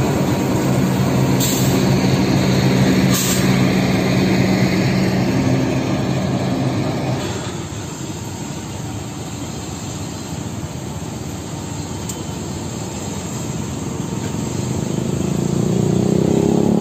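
Diesel-electric locomotive passing close by at low speed, its engine running with a steady low hum, with two sharp clanks in the first few seconds. After a sudden change, a train rumbles across a high concrete viaduct further off, the rumble growing louder toward the end.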